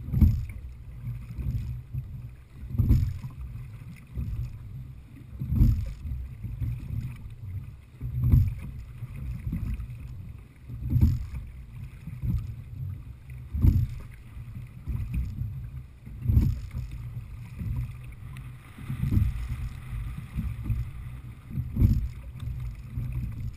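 Sculling strokes in an open-water rowing boat: a knock and a swell of water noise with each stroke, about one every 2.7 seconds, over a steady low rumble.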